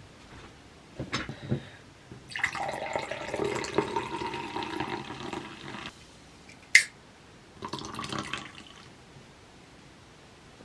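Water running or pouring for about three and a half seconds, with a few knocks before it and a single sharp click after.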